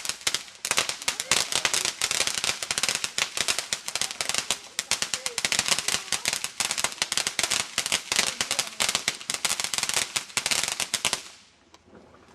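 A string of firecrackers going off as a long, dense run of rapid sharp pops. The pops stop abruptly about a second before the end.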